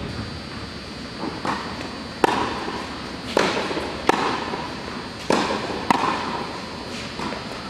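Tennis balls struck by rackets and bouncing on an indoor hard court during a baseline rally: about seven sharp pops, each with an echo in the hall, the loudest around two and four seconds in.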